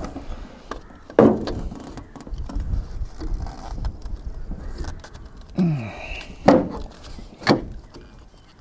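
Metal clunks and scraping as a car alternator is worked by hand into its engine mounting bracket: a sharp knock about a second in, a short falling scrape or creak past the middle, then two more knocks near the end.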